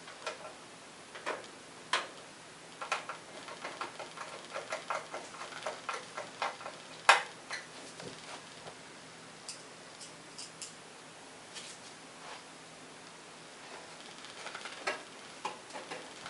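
Irregular small clicks and taps of screws and a screwdriver on a computer case as a power supply is screwed into it, thickest in the first half, with one sharper knock about seven seconds in.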